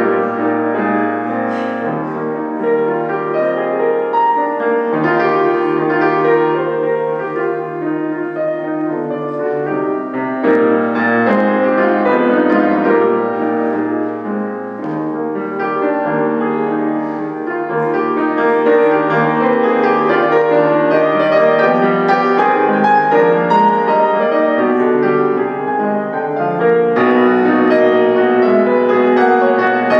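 Solo piano piece played continuously, with held bass notes under a moving melody. Near the end it grows brighter and fuller in the upper register.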